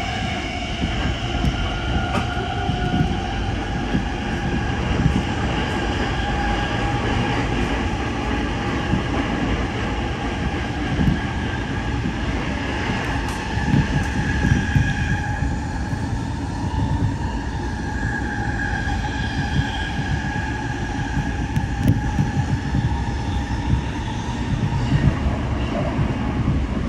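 Toyo Rapid Railway commuter train running at speed between stations, heard from inside the car: a steady rumble of wheels on the rails, with a high whine that drifts slowly in pitch.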